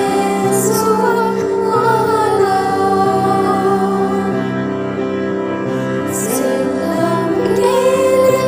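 A girls' choir singing a song over backing music, with long held notes and no break.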